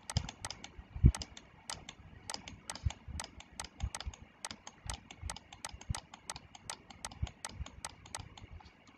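Computer mouse button clicked over and over, about four sharp clicks a second, each click setting another point of a spline in the CAD drawing. There is one duller thump about a second in.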